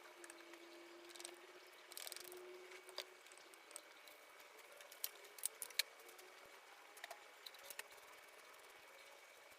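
Faint, scattered light clicks and taps, a few of them sharper about five to six seconds in, over a quiet background with a faint steady high tone.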